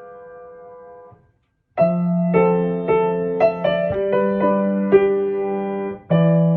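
Piano music: a held chord fades away into a brief silence, then a new phrase of piano notes begins about two seconds in, with a short break near the end.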